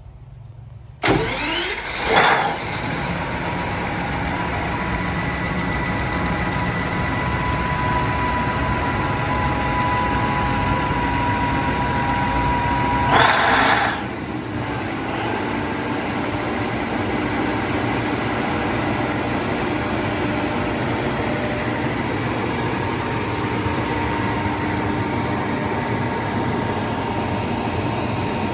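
Generator engine starting about a second in with two quick surges, then running steadily with a constant whine. A brief louder rush of noise about thirteen seconds in.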